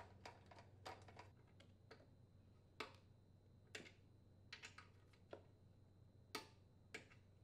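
Faint, irregular clicks of a torque wrench and socket working the engine's blower housing mounting bolts, spaced unevenly about half a second to a second apart.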